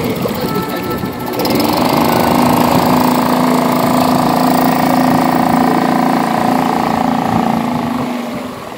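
Small 2.5 hp outboard motor pushing a loaded inflatable catamaran. It revs up to high throttle about a second and a half in, runs steady at full speed, and fades near the end.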